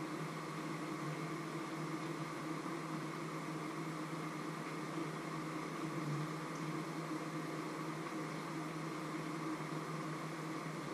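A steady mechanical hum, several even pitches over a faint hiss.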